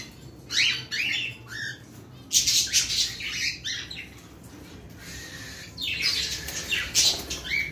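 Cockatiels calling: three bouts of short, harsh squawks and chirps, the loudest about two and a half seconds in and again near the end.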